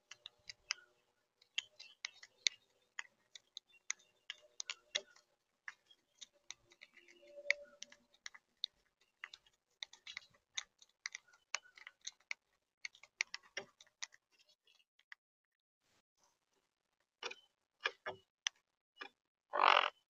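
Monk parakeets feeding at a seed tray: rapid, irregular sharp clicks of beaks cracking seed shells and knocking on the feeder. A louder brief burst of noise comes just before the end.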